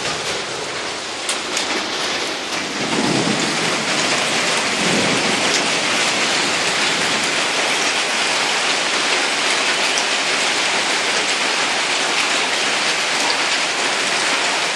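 Heavy rain and hail pouring down in a steady, dense hiss that grows louder about three seconds in. A few sharp ticks come early on, and low rumbles come around three and five seconds in.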